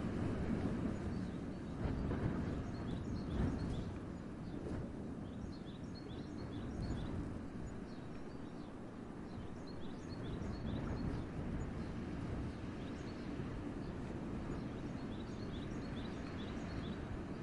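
Wind gusting through a winter forest, a low rumbling rush that swells and eases, with small birds giving many short, high chirps throughout.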